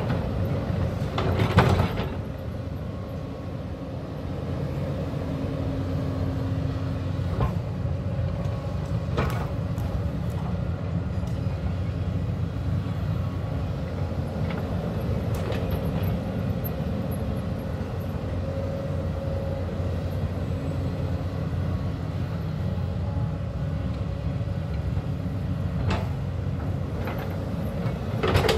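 Hyundai crawler excavator's diesel engine running steadily under load as the bucket digs into the hillside soil. A few sharp scraping knocks of the bucket against the earth stand out, the loudest about a second and a half in and again at the very end.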